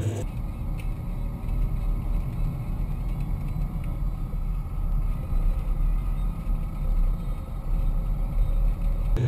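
Ford Windstar minivan driving, heard inside the cabin: steady engine and road noise with a heavy low rumble. It cuts in and out abruptly.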